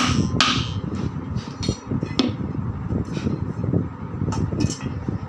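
Hammer tapping a ball bearing into a ceiling fan's metal end cover: two sharp strikes about half a second apart right at the start, then lighter, irregular taps.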